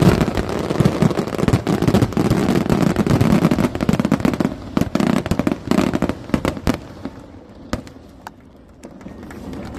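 Fireworks going off in a rapid barrage of bangs and crackles, thinning to scattered single cracks after about seven seconds.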